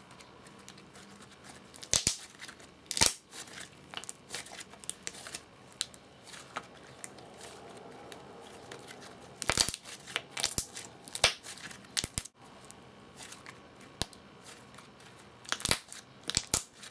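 Butter slime being kneaded and squeezed by hand, giving sharp air-bubble pops and sticky crackles at irregular intervals, with the loudest pops in little clusters.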